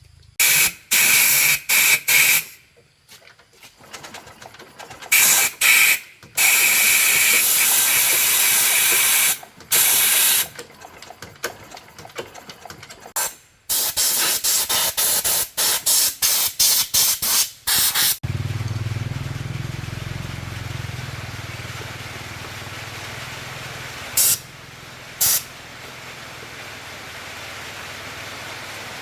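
Pressurised spray hissing on and off in loud bursts, some a second or more long, then a quick run of short squirts. About two-thirds of the way in the bursts stop, giving way to a steady low hum under a fainter hiss, broken by two more short squirts.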